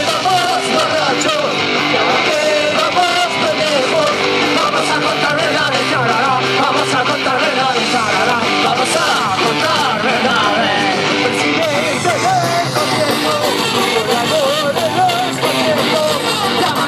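Live punk rock band playing loud and steady: distorted electric guitars over bass and drums, with a wavy melodic line on top.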